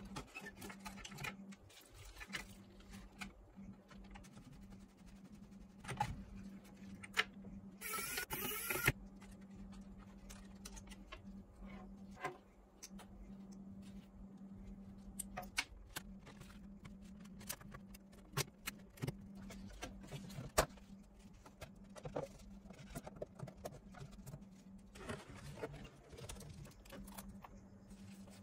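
Parts of a cassette mini stereo being handled and taken apart: scattered light clicks and knocks of plastic and metal, with a louder scraping burst about eight seconds in, over a steady low hum.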